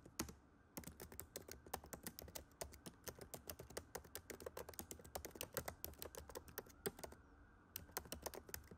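Faint typing sound effect: rapid key clicks, about six to eight a second, with brief pauses just after the start and near the end, keeping time with on-screen text being typed out.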